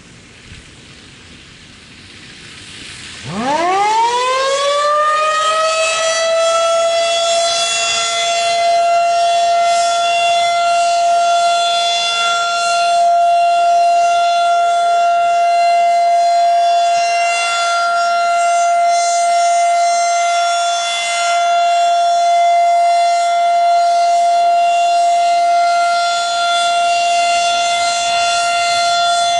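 Federal Signal 2001-SRN/DC outdoor warning siren sounding a test: about three seconds in it winds up, its pitch rising quickly, then levels off into a loud steady tone.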